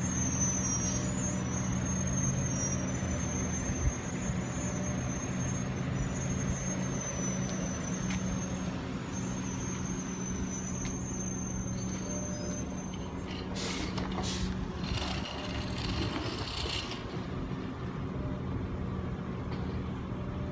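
Garbage truck's diesel engine running steadily as the truck pulls away down the street, with short air-brake hisses about two-thirds of the way in.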